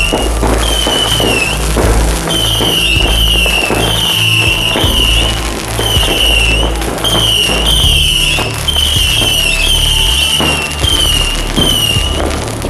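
Fireworks fountains and rockets crackling and popping, laid over background music with a sustained bass line and a repeating high melody.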